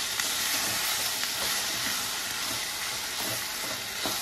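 Onion and ginger-garlic masala frying in oil in a kadhai, with red chilli powder just added: a steady sizzle, with a few light clicks of the stirring spoon.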